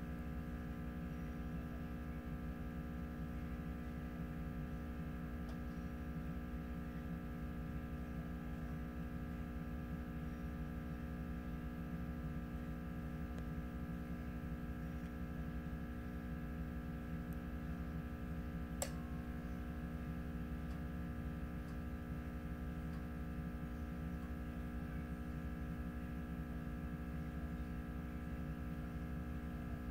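Steady electrical hum from the reflow equipment while it heats the circuit board, with one faint click about two-thirds of the way through.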